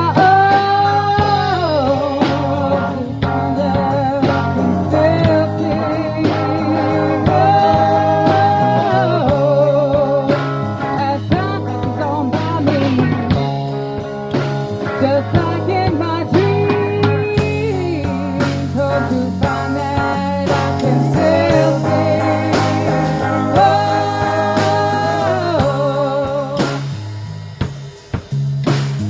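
A rock band of guitar, bass guitar and drums playing an instrumental break. A lead line of held notes with vibrato and pitch bends runs over a steady bass and drum groove.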